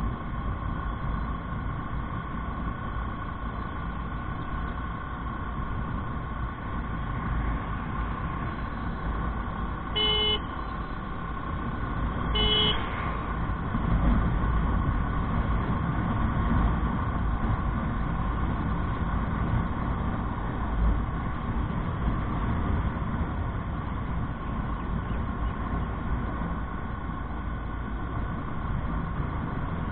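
Motorcycle on the move at road speed, heard from a handlebar-mounted action camera: a steady rumble of engine and wind noise. Two short vehicle-horn toots sound about a third of the way in, a couple of seconds apart.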